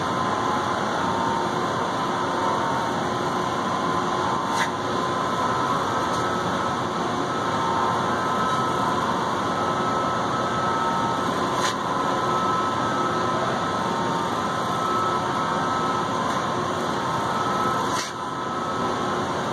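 Steady background hum and hiss of running machinery, with a few faint steady tones in it. Three brief light ticks come through it, spread several seconds apart.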